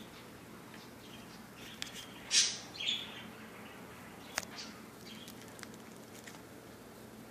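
Pet parakeet chirping in short high calls, the loudest about two and a half seconds in and another just after, with a few sharp clicks between them.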